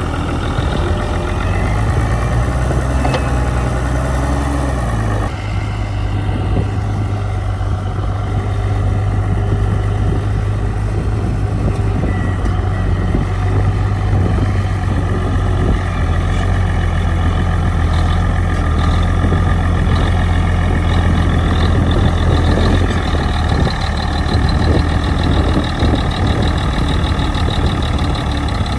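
Bulldozer's heavy diesel engine running steadily under load, with a deep, constant note. The engine note changes abruptly about five seconds in and shifts again near the end.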